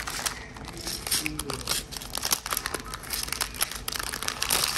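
Plastic packaging crinkling and small plastic storage cases clicking and clattering on a table as nail supplies are handled, with a louder rustle near the end.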